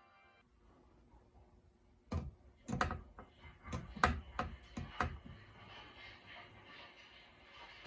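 An irregular run of sharp clicks and knocks, about eight in three seconds, starting about two seconds in. After them comes a faint steady hiss.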